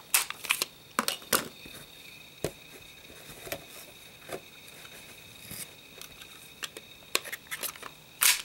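Scattered small clicks and knocks of a Kahr CW45 pistol and its magazines being handled, with a louder click near the end.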